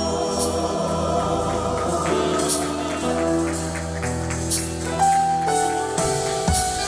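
Live gospel worship music: sustained held chords over a bass line, with light percussion strikes.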